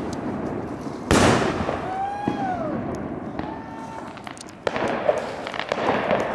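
Aerial fireworks bursting overhead: one loud bang about a second in, then dense crackling from about the middle on.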